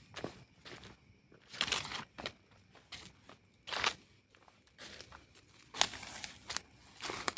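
Irregular rustling and crunching: a handful of short, crackly bursts a second or two apart, like dry debris being disturbed by movement.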